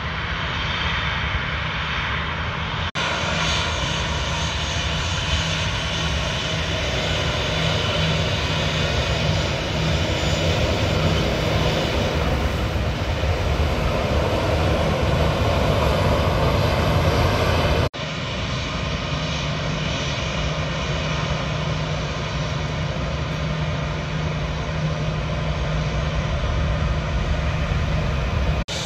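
Airliner engine noise, continuous and fairly loud, strongest in the low range. It is heard in three stretches joined by sudden cuts, a few seconds in and about two thirds of the way through, and it grows a little louder shortly before the second cut.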